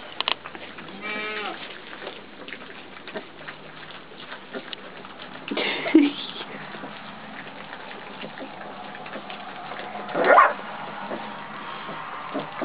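Great Pyrenees puppies eating from a shared bowl: a steady patter of small lapping, smacking and chewing clicks. A puppy whines in short high cries, a wavering one about a second in and louder ones about 6 and 10 seconds in.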